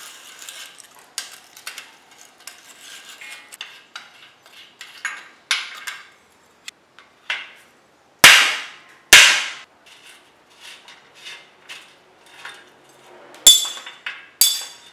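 Hammer blows on a flat screwdriver set against the rusty bottom-bracket lockring of an old steel bicycle frame, knocking it loose: two loud ringing metal strikes about a second apart just past the middle. Before them come light clicking and scraping of tools on the parts, and near the end two more ringing metal clinks.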